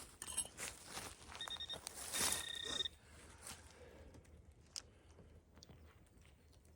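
Metal detector giving two short, high-pitched electronic beeps a little under a second apart over a target, with rustling noise around them.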